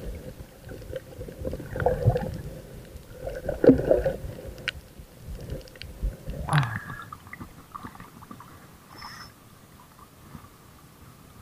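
Muffled water noise heard through a submerged waterproof action camera: low rumbling and gurgling, with louder sloshes about two and four seconds in. A sharp sweep comes at about six and a half seconds, after which it goes much quieter.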